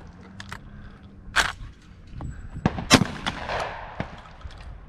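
Two shotgun shots at clay targets, about a second and a half apart, the second louder and echoing, with a few lighter clicks around them.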